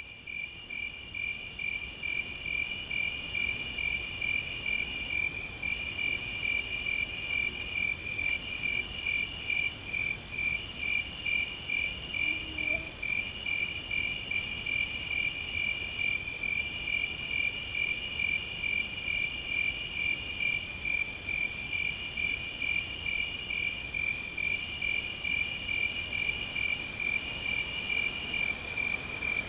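A chorus of crickets and other insects chirping: one steady, fast-pulsing trill throughout, with higher insect songs coming and going in phrases of a second or two, and a few brief sharp louder rasps.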